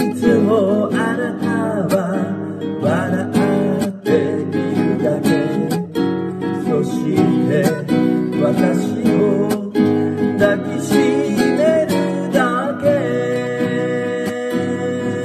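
Nylon-string cutaway classical guitar strummed in chords as a folk-song accompaniment. Near the end a chord is left ringing.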